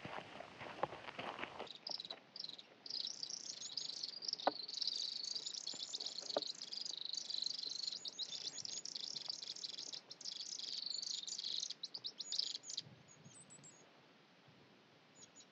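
Thorn-tailed rayadito singing: a rapid, high-pitched chattering trill that runs for about eleven seconds and then breaks off, leaving a few faint high chirps near the end.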